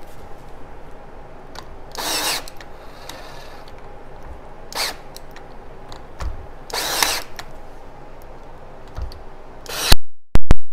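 Ryobi AirStrike cordless nailer firing nails into wood, single shots a couple of seconds apart, with a run of very loud, sharp cracks near the end.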